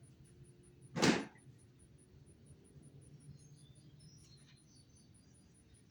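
One short swish of noise about a second in, then only a faint low background.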